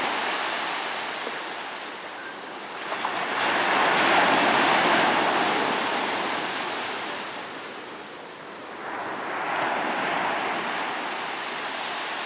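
Ocean waves breaking on a beach, the surf swelling and fading. One wave is loudest about four seconds in and another rises about ten seconds in.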